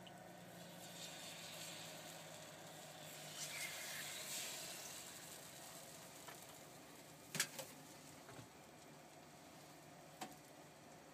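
Takoyaki batter sizzling faintly as it is poured into the hot wells of a takoyaki pan, swelling over the first few seconds and then easing. A sharp knock comes about seven seconds in and another near the end.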